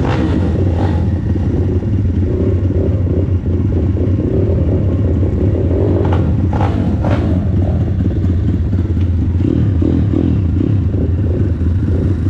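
Pit bike engines idling steadily with a deep, even rumble. Two short sharp noises cut in about six and a half and seven seconds in.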